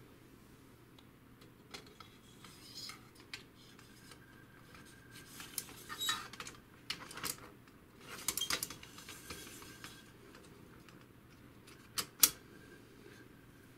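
Steel carriage guide rod of an HP DeskJet 2130 being slid through the plastic print carriage and fitted into the printer's metal frame: scattered light metal and plastic clicks and clatters, with one sharp click near the end.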